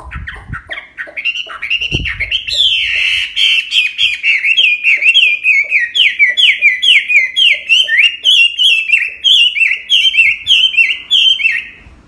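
Caged Chinese hwamei singing a loud, continuous run of quick slurred whistles, repeated note after note at a fast pace. A brief low thump comes about two seconds in.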